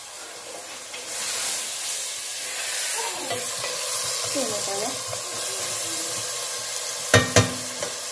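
Onion and meat frying in oil in a pan: a steady sizzle that gets louder about a second in. Two sharp knocks come near the end.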